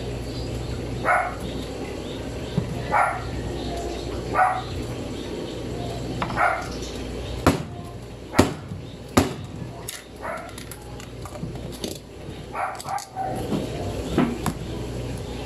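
A dog barking over and over, one short bark about every one and a half to two seconds. A few sharp knocks come near the middle.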